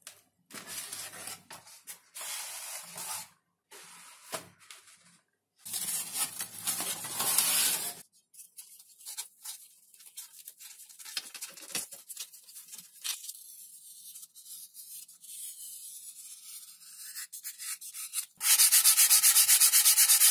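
Hands rubbing and working sheets of XPS foam in scratchy bursts, with fainter scratching while a foam sheet is curled around an aluminium tube. Near the end comes sandpaper on a small foam part in rapid, even back-and-forth strokes, the loudest sound.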